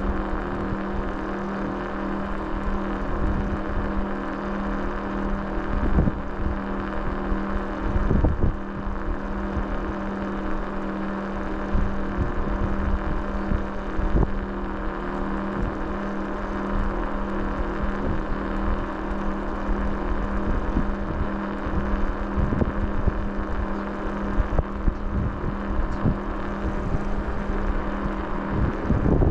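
A vehicle's engine running at a steady speed, with scattered knocks and thumps and wind on the microphone.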